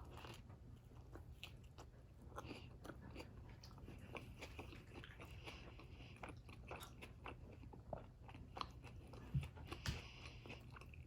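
A person chewing a mouthful of sub sandwich close to the microphone: quiet, irregular crunches and wet mouth clicks.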